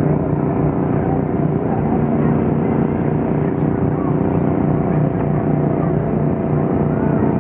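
A steady engine drone at a constant pitch, like an idling tractor or other engine, with faint crowd chatter underneath.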